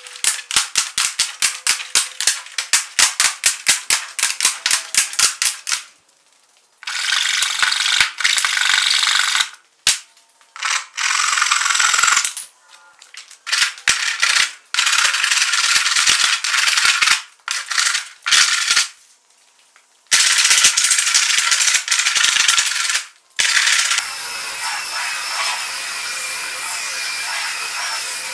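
A run of workshop sounds: first quick, evenly spaced hand-tool strokes at about four a second, then several bursts of power-tool hiss that start and stop abruptly. Near the end a handheld sander runs steadily on the canoe's wooden gunwale.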